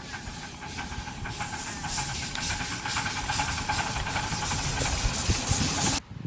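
Live-steam model locomotive CGW 292 hissing steam with rapid, rhythmic chuffs, growing louder about a second in. The sound cuts off abruptly near the end.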